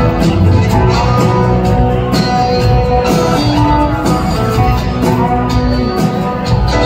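Live rock band playing an instrumental jam, electric guitar leading over drums and keyboards, recorded from the audience in a large hall.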